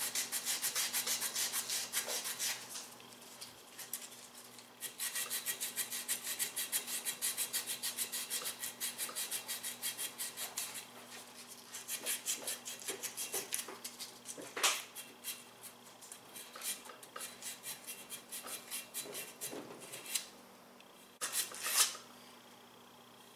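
Sandpaper rubbed by hand in quick back-and-forth strokes over the Polaris RZR XP 1000 secondary clutch sheave, smoothing down roller wear left by the square pucks. The strokes come in runs with short pauses, and there are two sharp clicks, the last near the end.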